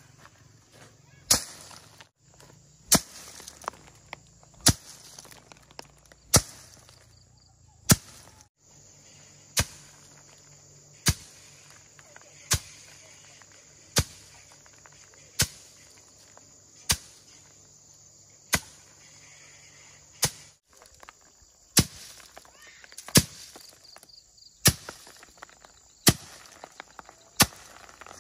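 About eighteen sharp blows struck one after another in a steady rhythm, roughly one every second and a half, each a single hard hit, as from chopping or hammering with a hand tool.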